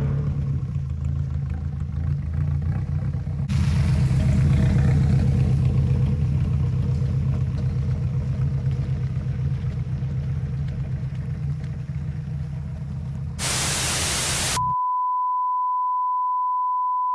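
Nissan 240SX with a 4-inch ISR exhaust and high-flow cat, its exhaust droning steadily while cruising, with added wind and road noise from about three and a half seconds in. Near the end the car sound gives way to a burst of static hiss, which cuts to a steady high beep tone.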